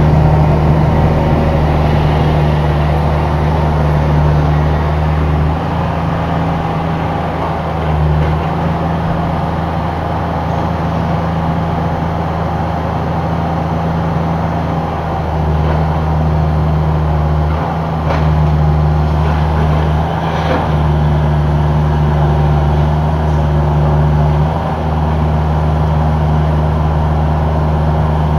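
Cat 304 mini excavator's diesel engine running steadily under working load, its low engine note shifting in level every few seconds, with a few faint clanks about two-thirds of the way through.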